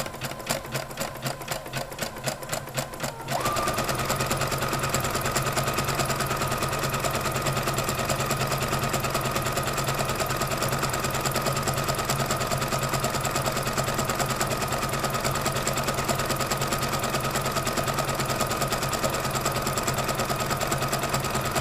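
Domestic sewing machine sewing a zigzag stitch along a raw fabric edge to finish a seam. It starts slowly with separate stitches for about three seconds, then speeds up to a steady fast run with a steady whine.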